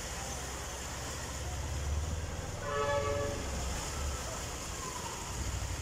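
A vehicle horn honks once, a short flat tone of about half a second, about three seconds in, over a steady low rumble of background noise.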